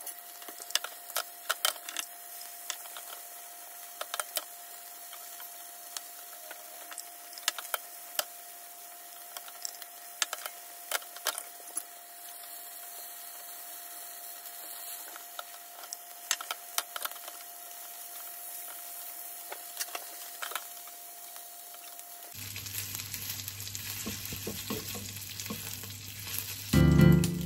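Pork-wrapped okra rolls sizzling in a frying pan, with frequent light clicks as chopsticks turn them against the pan. About 22 seconds in, the sizzling gets louder, and music comes in near the end.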